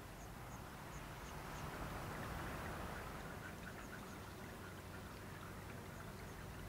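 Faint outdoor ambience: a high chirp repeats about three times a second for the first second and a half, a soft hiss swells and fades about two seconds in, and fainter, quicker chirping follows under a steady low rumble.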